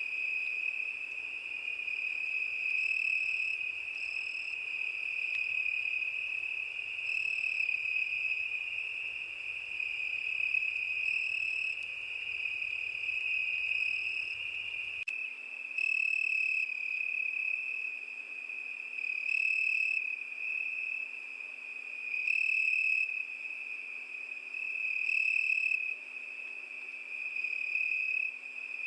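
Crickets singing: a steady high trill, with louder bouts of chirping coming roughly every three seconds.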